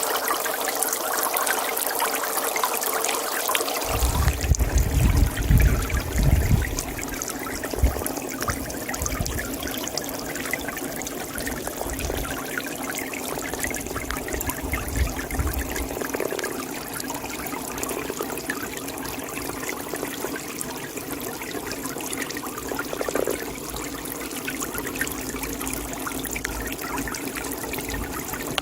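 Water trickling steadily at a pond, with a change in the sound about four seconds in followed by a few seconds of low rumbling bursts.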